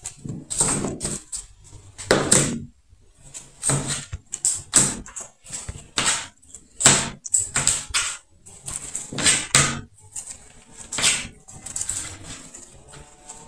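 A kitchen knife cutting nopal cactus pads on a plate, making irregular knocks and short scrapes, about one or two a second.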